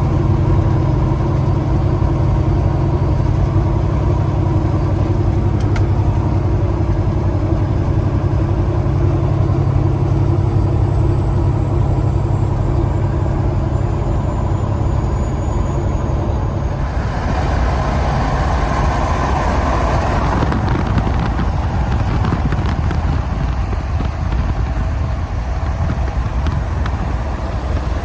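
Peterbilt semi truck's diesel engine running steadily under way, with a faint high whine that slowly falls in pitch. About 17 s in the sound changes abruptly to a rougher, noisier rumble.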